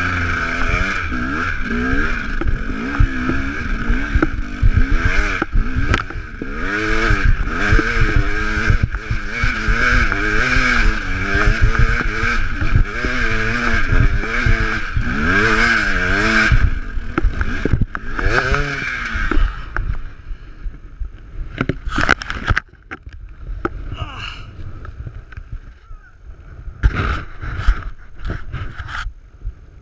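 KTM enduro motorcycle engine revving up and down constantly while riding a rough trail. About twenty seconds in, the engine sound drops away and a few scattered knocks and thumps follow.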